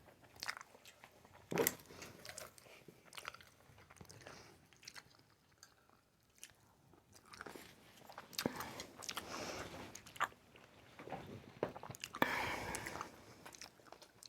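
Soft, intermittent chewing and mouth sounds of someone eating sushi, with scattered small clicks and a quieter stretch in the middle.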